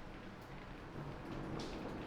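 Heavy rain falling steadily, with separate drops landing close by; it grows a little louder about a second in.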